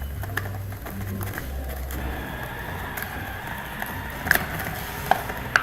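Glue-and-sugar slime mixture being stirred in a bowl: a low rumbling scrape with a few sharp clicks of the utensil against the bowl.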